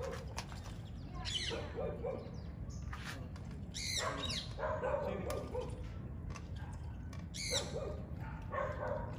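A dog barking off and on in short groups of barks and yips, over a steady low background noise.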